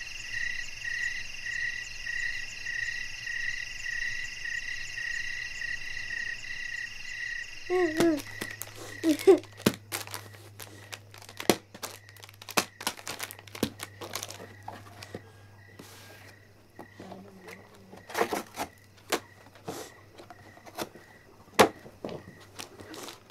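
A steady, fast-pulsing chirring of night insects for about eight seconds, fading to a faint background. Then a child's brief voice and the crinkling and sharp clicks of chocolate wrappers being handled and tossed onto a rug.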